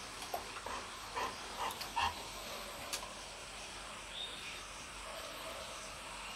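Faint steady hiss of light drizzle falling outside, with a few soft clicks in the first two seconds.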